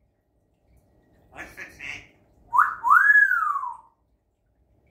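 African grey parrot whistling: a short rising note, then one long whistle that climbs and falls back. This comes after a brief burst of mumbled chatter about a second and a half in.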